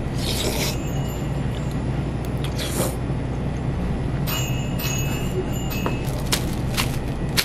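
Rosé buldak cup noodles slurped off wooden chopsticks: three short slurps, near the start, about two and a half seconds in and around six seconds in, over a steady low hum. A faint high tone sounds around the middle.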